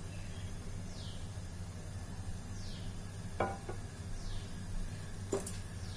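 Steady low kitchen hum while oil warms in a pan on the gas stove, with a short high falling chirp repeating about every one and a half to two seconds and two soft knocks, about three and a half and five and a half seconds in.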